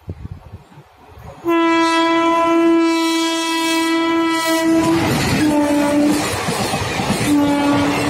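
WAP-4 electric locomotive's horn: one long blast of about three and a half seconds, then two shorter, slightly lower blasts as the train passes at speed. Under the later blasts, the train runs by close, its wheels rumbling and clattering over the rails.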